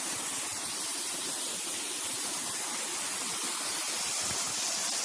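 Steady rushing of a waterfall: an even hiss of falling water with no breaks.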